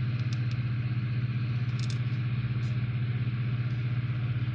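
A steady low hum runs throughout, with a few faint light clicks of a plastic model-kit sprue being handled, a cluster of them about two seconds in.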